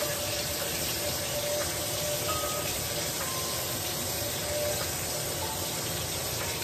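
Ribeye steak sizzling steadily in a hot frying pan.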